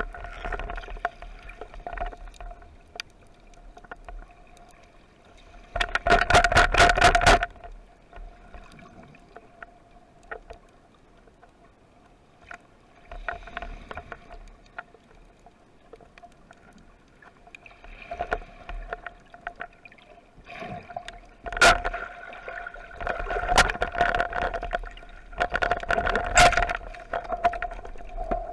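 Underwater sound picked up by a camera mounted on a speargun: a steady hum runs throughout. Twice, about six seconds in and again from about twenty-one seconds, it is broken by loud bursts of dense clicking and bubbling crackle.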